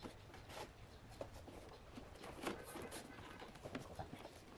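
Faint, scattered light taps and rubbing as thin bent wood strips are handled and pressed into a ring against wooden blocks on a plywood table.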